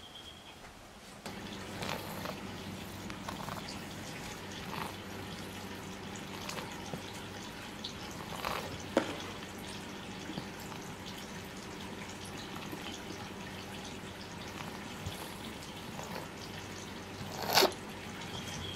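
Room ambience: a steady low hum with scattered light clicks and taps, and one louder short clatter near the end.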